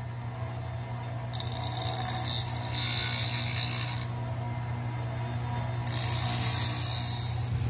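Bench grinder running with a steady motor hum while a piece of steel angle is pressed against the wheel twice, each pass a loud scraping grind lasting about two to three seconds. The passes deburr the cut corners of the steel diamond-plate angle.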